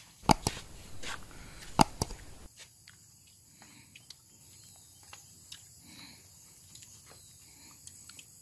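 Sharp clicks and crunches, loudest in the first two seconds, then faint scattered ticks, as a group eats puffed binni rice by hand. A steady high insect chirring runs underneath.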